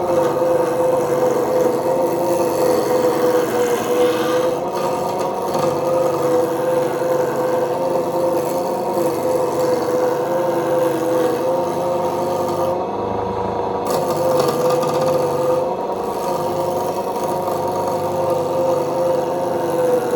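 Wood lathe running with a steady motor hum while a spindle roughing gouge cuts a spinning square cherry blank, a continuous scraping rasp of the tool rounding the wood.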